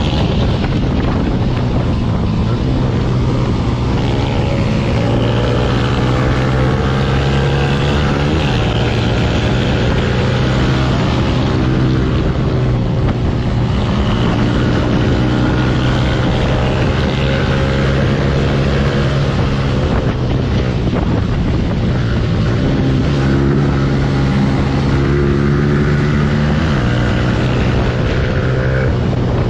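Motorcycle engine running at speed in onboard riding footage, its drone falling in pitch about eight seconds in and climbing again near the end as the throttle changes, with wind rush over the microphone.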